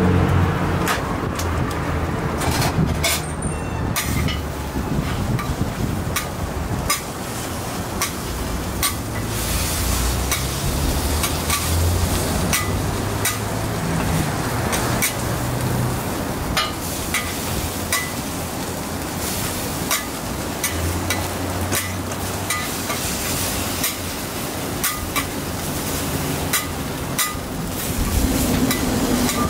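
Metal spatulas clicking and scraping on a large iron teppan griddle in irregular sharp taps, over a steady sizzle of okonomiyaki frying.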